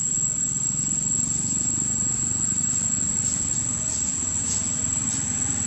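Steady high-pitched insect drone over a low steady rumble, with a few short high chirps between about three and five seconds in.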